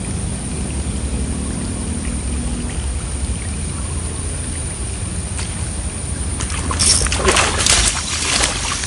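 Water splashing hard several times at the edge of a swampy pond, starting about six and a half seconds in and lasting about two seconds, over a steady low hum.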